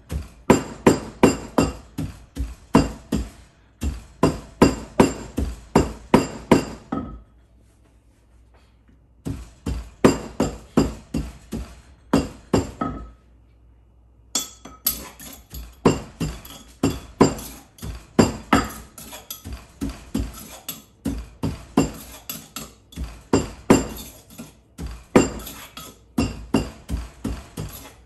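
A wooden pestle pounding in a large mortar, a steady run of knocks about two to three a second, stopping for a few seconds twice along the way; the pounding of papaya salad seasoning.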